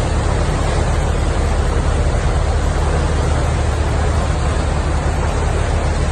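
Boat under way at sea: a steady low engine drone mixed with the continuous rush of the propeller wash churning in the wake.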